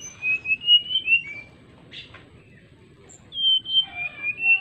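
Male brown-chested jungle flycatcher singing: two short phrases of clear, flute-like whistled notes stepping up and down in pitch, the first right at the start and the second near the end, with a pause between.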